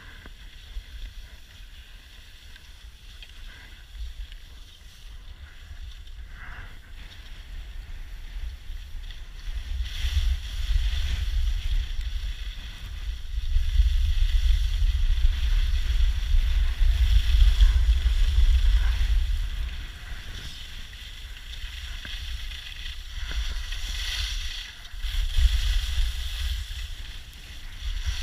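Wind buffeting the camera microphone while skiing downhill, over the steady hiss and scrape of skis on packed snow. The rumble swells louder about ten seconds in and again near the end.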